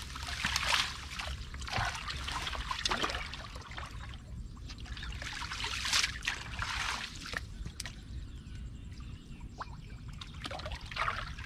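Shallow water splashing and trickling in irregular bursts, with a steady low rumble underneath.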